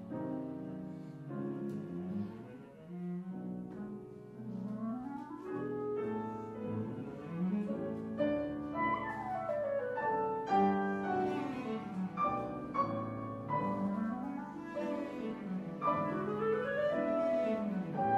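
Instrumental music accompanying a silent film, with quick rising and falling melodic runs, growing a little louder in the second half.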